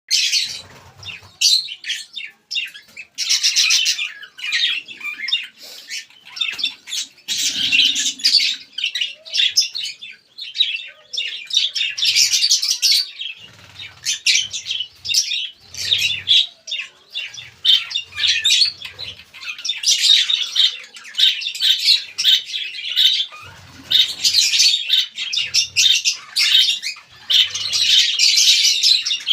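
Lovebirds chattering with shrill, continuous chirps and squawks, many calls overlapping, with a few faint low thuds.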